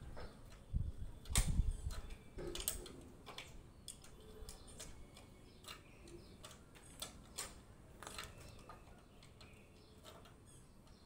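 Irregular light clicks and taps from steel column formwork as workers loosen and pull off the sheets, with a couple of dull thumps about a second in.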